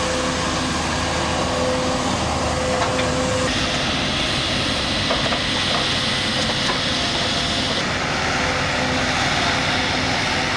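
An engine of heavy machinery running steadily under load, with a steady low tone through a loud noisy mechanical din; the sound changes abruptly about three and a half seconds in and again near eight seconds.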